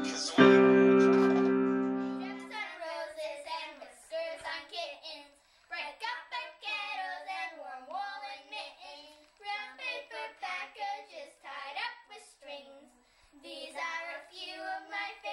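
An electronic keyboard chord is struck about half a second in and held, then cuts off. Three young girls then sing together without accompaniment, in short phrases.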